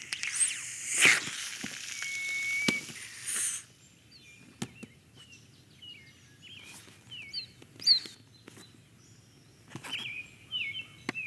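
A loud hissing swell with a short steady tone in the first few seconds, then birds chirping, with scattered sharp clicks.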